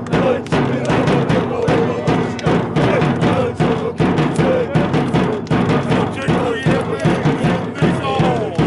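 Group of football supporters singing a chant together in unison, with a steady beat of strikes under the voices.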